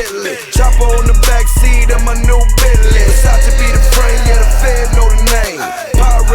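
Hip hop music without vocals: a loud beat over heavy bass that drops out briefly twice, at the start and about five and a half seconds in, each drop led in by a falling glide.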